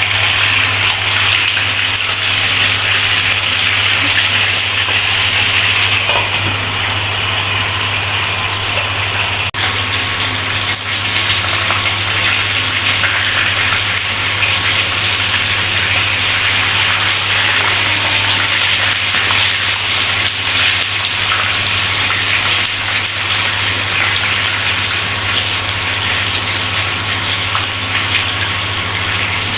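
Fish deep-frying in hot oil, a steady loud sizzle that turns brighter and fuller about nine seconds in, with a low hum underneath.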